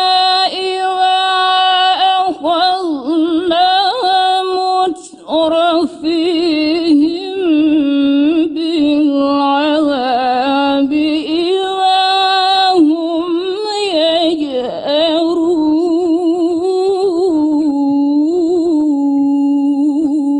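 A woman's solo voice reciting the Quran in the melodic mujawwad style, drawing out long held notes with wavering ornaments and pausing only briefly for breath. It ends on one long steady held note.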